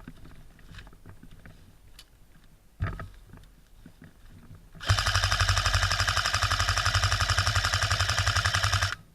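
Airsoft gun firing one long full-auto burst of about four seconds, a rapid even rattle of shots that cuts off suddenly, after a few seconds of faint rustling and a soft knock.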